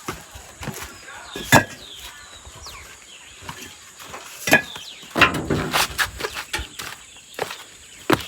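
Hollow bricks knocking against each other as they are handled and set down while being unloaded: a few sharp clacks, one about a second and a half in and a cluster a little past the middle.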